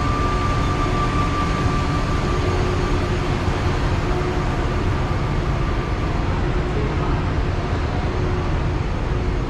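Steady engine and road noise inside a moving shuttle bus, heavy in the low end, with a faint high whine that fades away over the first few seconds.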